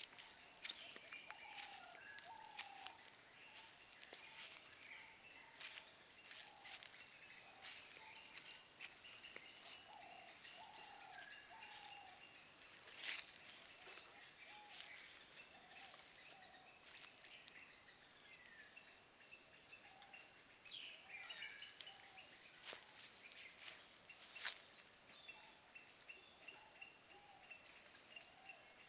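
Insects keep up a steady high-pitched trill while birds give short chirps and sweeping calls. The trill grows louder for a few seconds about a third of the way in, and there are a few sharp clicks.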